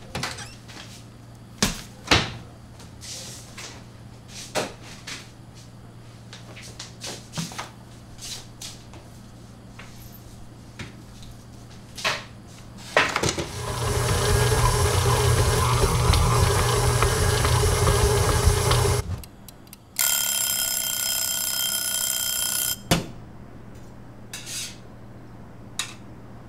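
Knocks and clunks of things being set down on a wooden board, then an electric stand mixer's motor running loudly and steadily for about five seconds and stopping. After a short gap a steady buzzing alarm tone sounds for about three seconds.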